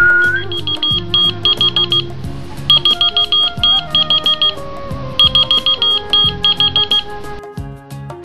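A short rising whistle, then a whistle-activated key-finder keychain answers with rapid high-pitched beeps in three runs, signalling that it heard the whistle.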